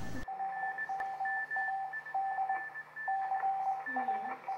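Morse code tones beeping in an uneven pattern of short and long beeps, the dits and dahs of a radio amateur's CW signal.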